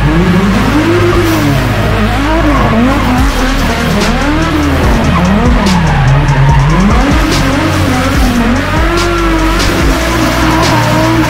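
Nissan 350Z's V6 revving up and down about once a second as the throttle is worked through a drift, with tyres squealing, then holding a steadier note near the end. Music plays underneath.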